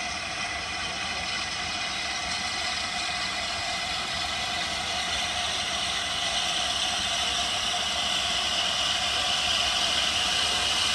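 Steam locomotive approaching from a distance, heard as a steady rushing noise that slowly grows louder as the train draws nearer.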